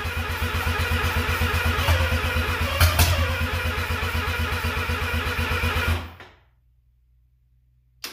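Mazda 12A rotary engine running on a test stand with a fast, even pulsing, the revs rising and falling briefly about three seconds in. It cuts out about six seconds in and dies away, followed by a single click near the end.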